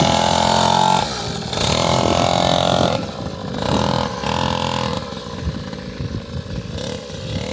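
Mini trail bike's small engine revving in about three bursts of throttle as it is ridden off, growing fainter toward the end as the bike pulls away.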